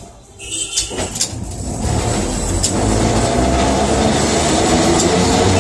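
Electric tram starting off: a few sharp clicks as the controller handle is notched over, then the traction motors and wheels hum and rumble, growing louder over about two seconds and then running steadily.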